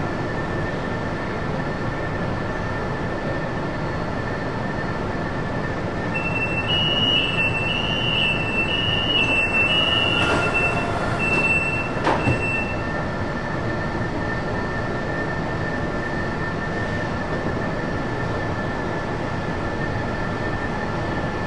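Metro train standing at the platform with a steady hum. About six seconds in, a high warning beep starts pulsing and keeps going for about six seconds, typical of the door-closing alarm. Two knocks come near its end, the louder one about twelve seconds in, as the doors shut.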